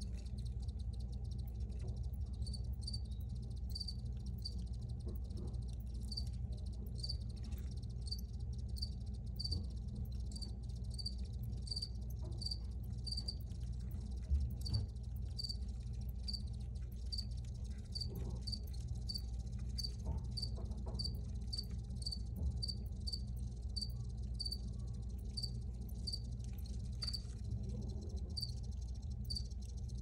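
Crickets chirping: short, evenly spaced chirps at about one and a half a second, with a steady low rumble underneath.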